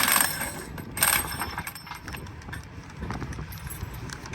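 Metal-on-metal clanks from track work on a railroad diamond crossing: a loud ringing strike at the start and another about a second in, then lighter knocks and taps.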